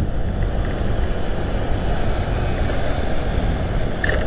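Motorcycle riding: steady wind rush on the rider's microphone with engine and road noise underneath, a heavy low rumble.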